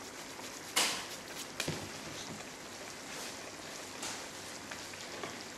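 Tomato sauce simmering in a hot skillet, a steady light sizzle and bubbling. A sharp click comes a little under a second in, with fainter ones about two and four seconds in.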